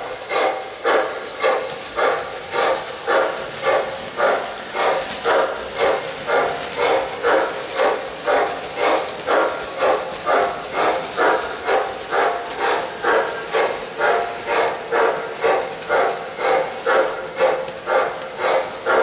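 ProtoSound 2.0 steam chuff from an MTH Premier O-gauge Santa Fe 2-10-4 Texas locomotive running with a freight, a steady, even chuff at about two a second.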